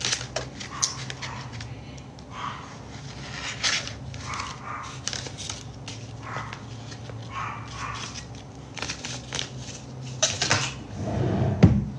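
Crinkling and rustling of a silicone scar sheet's plastic film and packaging being handled, in short irregular crackles, with a louder rub near the end.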